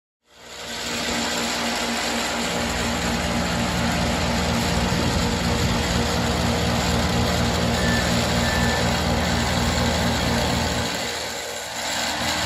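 Remote-controlled laser screed's engine running steadily as the screed head strikes off wet concrete. Its low rumble eases briefly near the end, then picks up again.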